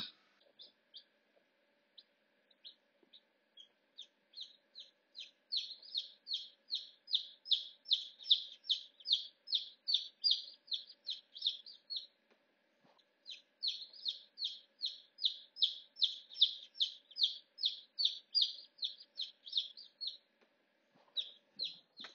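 Newly hatching domestic chicks peeping: a rapid string of short, high, downward-sliding chirps at about three a second, with a brief pause about twelve seconds in. A faint steady hum runs underneath.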